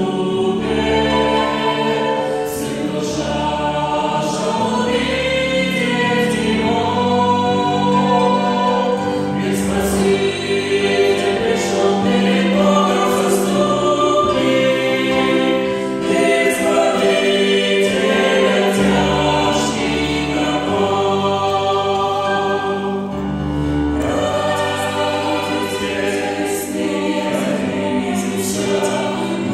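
Mixed vocal ensemble of men and women singing a hymn in harmony through microphones, with grand piano accompaniment.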